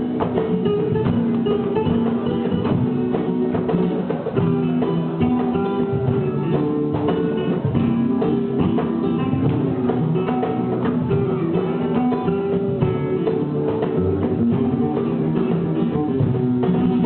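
Flamenco music led by acoustic guitar, with fast, dense plucked and strummed notes playing continuously.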